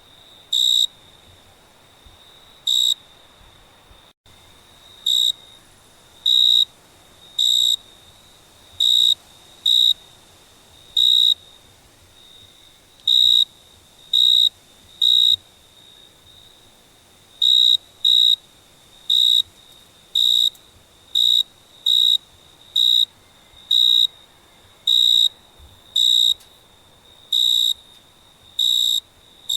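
A cricket chirping: short, high chirps at irregular intervals, roughly one a second, over a faint steady trill at the same pitch.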